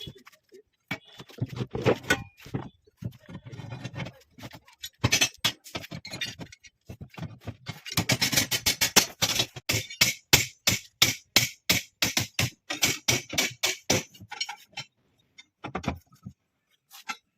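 Hand tools at work on column shuttering or steel bars: sharp knocks and clinks, scattered at first, then a fast, even run of about three strikes a second for several seconds around the middle.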